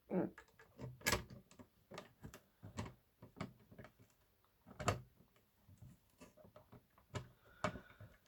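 Irregular clicks and knocks as a subwoofer's cabinet and parts are handled and worked on with tools during disassembly, the sharpest about a second in and again near five seconds.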